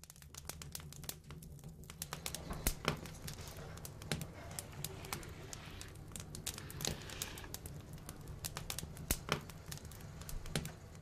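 Open fire crackling, with many irregular sharp pops over a steady low hum.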